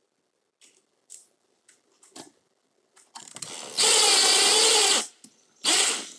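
Cordless impact driver driving a screw through a metal blind mounting bracket into the wall: a few light handling clicks, then one loud run of about a second with a wavering pitch, and a shorter burst near the end.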